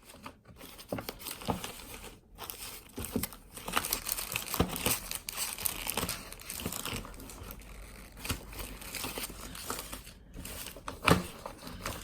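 Packaging crinkling and rustling as it is handled and rummaged through by hand, with scattered small clicks and a sharper knock about eleven seconds in.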